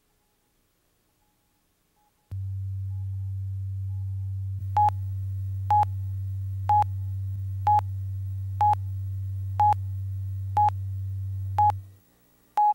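Videotape countdown leader: a steady low hum comes in about two seconds in, and from about five seconds in a short high beep sounds once a second on each count of the countdown clock, nine beeps in all. The hum cuts off just before the last beep.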